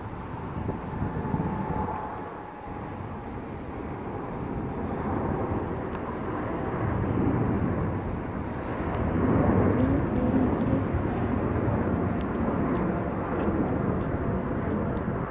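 Boeing 747 jet engines on a takeoff climb, a steady rushing noise that swells to its loudest about two-thirds of the way through, then eases slightly.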